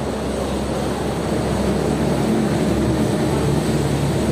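A steady low motor drone over a rushing background noise, growing slightly louder about a second in and then holding.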